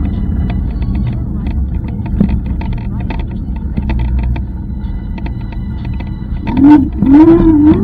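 Road rumble and rattling from an e-scooter ride, with wind on the microphone, full of short clicks and knocks. Near the end a loud wavering tone rises and falls several times.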